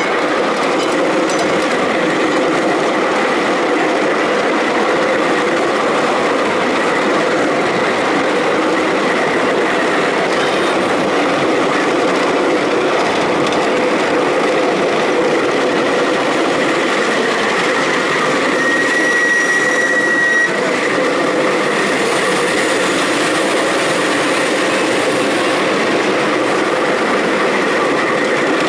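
Miniature ridable park railway train running along its track: a steady rolling rumble of small wheels on the rails with a faint even whine. About 19 seconds in there is a brief high squeal lasting roughly two seconds.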